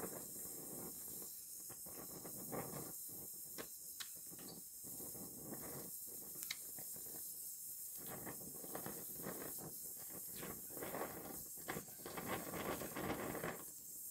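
Welding torch fusing the steel edge of a car trunk lid: a faint steady hiss with irregular crackling and snapping of the molten metal.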